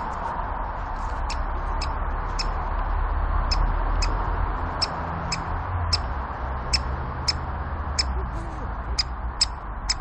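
Great spotted woodpecker giving short, sharp 'kik' calls, repeated irregularly about once or twice a second and louder in the second half, over a low rumble.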